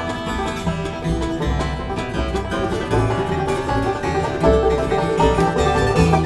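Bluegrass string band playing live: picked banjo and mandolin over acoustic guitar and a pulsing upright bass.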